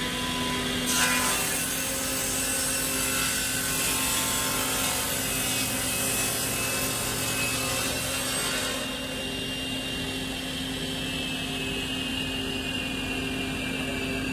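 Sliding-table saw running, its blade cutting through a thick solid-wood slab: a loud sawing noise over the steady motor hum starts about a second in and stops near nine seconds. After that the blade spins free.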